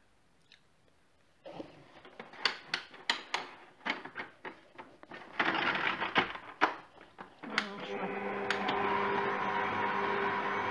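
Clatter and clicks of the stand mixer's plastic splash guard being fitted onto the steel bowl, then about seven and a half seconds in the stand mixer's motor starts and runs steadily, kneading sweet bread dough with its hook.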